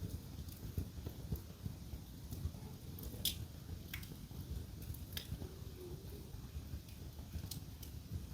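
Wood fire in a fireplace crackling, with a few sharp pops over a steady low rumble; the loudest pop comes about three seconds in.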